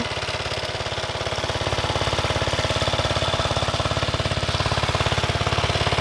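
Engine-driven irrigation water pump running steadily with a fast, even beat as it lifts water from a well, growing a little louder toward the end.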